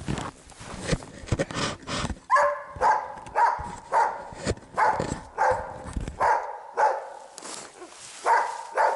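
Hunting dog barking in a steady run, about two barks a second, at a sable it has treed, baying to hold it for the hunter. Crunching steps in snow come before the barking starts, about two seconds in.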